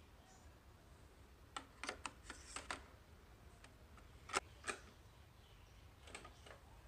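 Plastic clicks and clacks from an old cassette player being worked by hand: a quick run of small clicks about one and a half seconds in, two louder clacks about four and a half seconds in, and two faint clicks near the end.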